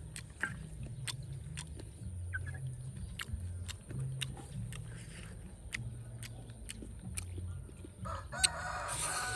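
A rooster crows once near the end, over a run of scattered sharp clicks.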